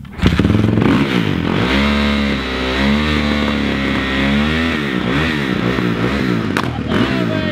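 Motocross dirt bike kick-started, catching about a quarter second in, then revved up and down repeatedly by the rider sitting on it.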